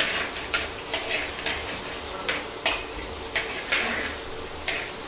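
A metal spoon stirring onions and green chilies frying in oil in a pot, scraping against the pot about twice a second over a steady sizzle.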